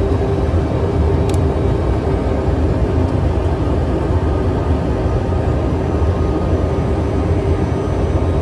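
Steady aircraft cabin noise heard from inside the cockpit on final approach: an even engine and airflow drone with a constant low hum.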